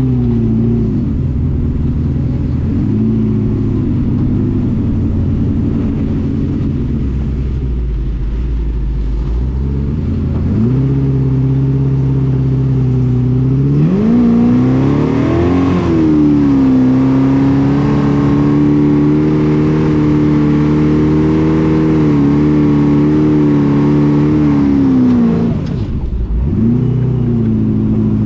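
Engine of an FJ40-based off-road buggy, heard from inside the vehicle, driving under changing throttle. It runs at low revs at first, picks up about ten seconds in, climbs further a few seconds later and holds there, then drops sharply near the end before picking up again.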